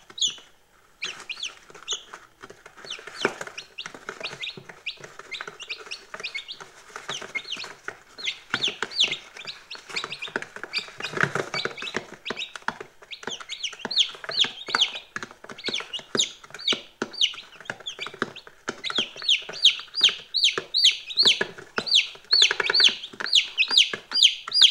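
A brood of day-old chicks peeping continuously: many short, high, falling cheeps overlapping one another, growing denser and louder in the last few seconds.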